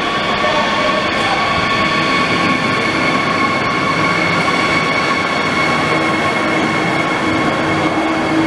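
Israel Railways double-deck passenger train running in along a station platform: a steady rumble of wheels on rail with a continuous high-pitched squeal of several tones over it.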